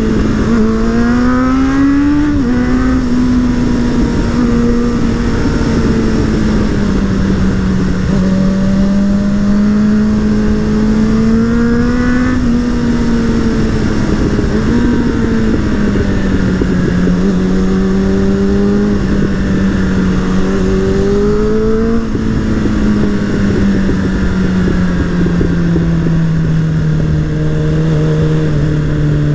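Suzuki Bandit 600's inline-four engine and exhaust heard from the rider's seat while riding, with wind noise. The revs climb briefly about two seconds in, again near the middle and about two-thirds through, then fall steadily through the last several seconds as the bike slows.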